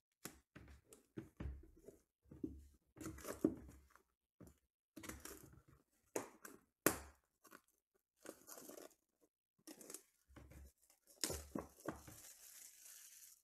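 Cards and a pack being handled, with scattered rustles and a couple of sharp taps, then a trading-card pack's clear plastic wrapper torn open and crinkled over the last couple of seconds.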